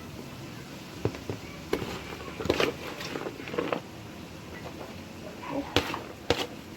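Kitchen cookware being handled: about half a dozen irregular knocks and clinks over a faint steady hum, as a pot of cabbage is worked.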